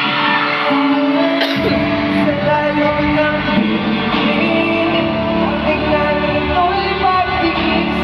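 A pop ballad performed live by a boy band, with sung vocals over the band; the bass comes in about one and a half seconds in.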